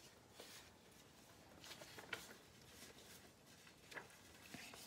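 Faint, brief rustles of paper pages and tags being turned and handled in a handmade journal, a few soft ones spread across, the clearest about two seconds in and about four seconds in.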